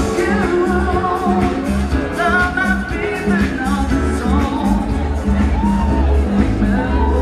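Live band playing amplified pop dance music, a singer's voice carrying the melody over a steady bass beat.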